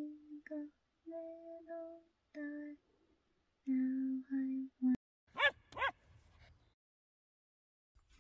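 A woman softly humming a slow lullaby tune: a string of short held notes, each at a steady pitch, with small pauses between them. About five and a half seconds in come two quick squeaky sounds that slide up and then down in pitch.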